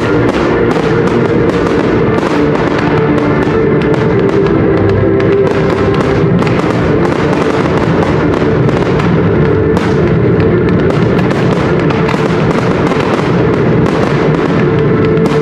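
Aerial firework shells bursting and crackling in quick succession, mixed with loud music, as in a fireworks show set to music.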